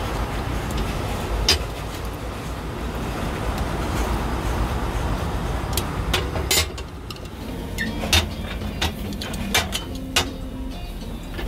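Cast-iron bungeoppang (fish-shaped bread) molds clanking several times as they are closed and turned over on the gas griddle, over a steady background rumble.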